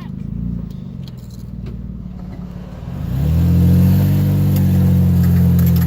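Jeep engine running at low power, then pulling harder and settling into a steady drone about three seconds in, with light clicks and rattles as it drives a rough dirt road.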